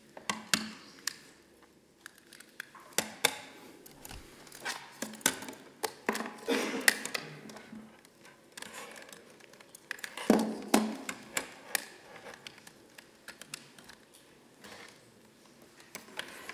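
Irregular clicks, taps and a few duller knocks of small electronics being handled and set up on a lectern, picked up by the lectern microphone.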